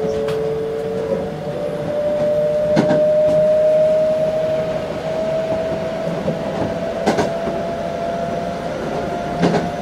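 Toei 5300 series subway train under way, heard from inside the car: its traction motors hum with a steady tone that slowly rises in pitch as the train gathers speed, over the rumble of the wheels. Four sharp clacks come from the wheels passing rail joints.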